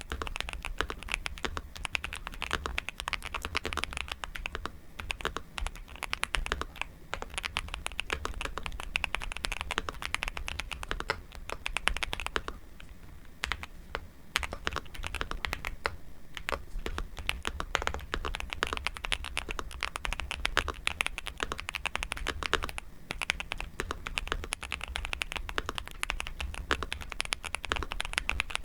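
Fast, continuous typing on a Nuphy Gem 80 mechanical keyboard: a dense run of key clacks, with a couple of short pauses about halfway through. A steady low hum lies beneath.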